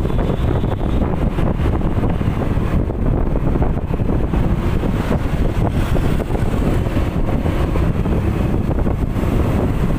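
Steady rumble of a moving vehicle with wind buffeting the microphone.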